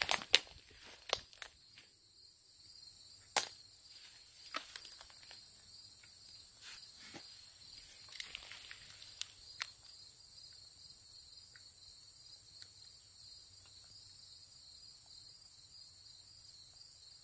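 Footsteps through brush and a string of sharp clicks as a trail camera's case is unlatched and its card handled, over a steady high chorus of insects. The clicks stop about ten seconds in, leaving only the insects.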